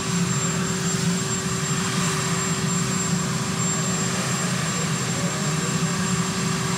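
Marine One, a Sikorsky VH-3D Sea King helicopter, running on the ground: a steady turbine whine over an even rush of engine and rotor noise.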